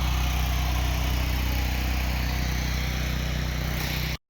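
Small gasoline engine of a pressure-washing rig running steadily at constant speed, with an even hiss over it. The sound drops out for an instant near the end.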